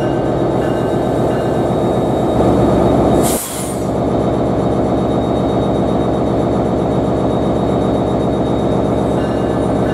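NJ Transit diesel locomotive running at close range with a steady low engine throb. A short, sharp hiss of air cuts in about three seconds in.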